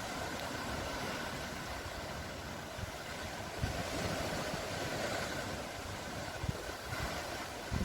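Steady rushing wash of the sea, with a few short low thumps of wind buffeting the microphone.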